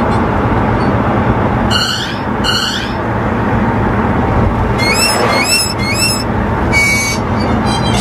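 A car on the move, giving a loud, steady rumbling noise of engine and road, with a few short, high rising squeaks about five seconds in. It is the noise that leads the driver to fear a snapped serpentine belt or a failing front end.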